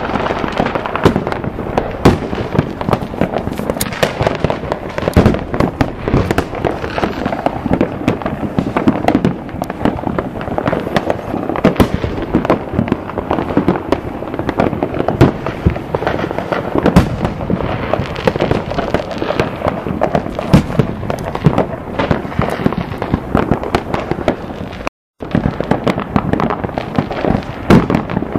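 Fireworks and firecrackers going off in a dense, continuous barrage of bangs and crackling, with no pause between reports. The sound drops out completely for a moment near the end, then the barrage carries on.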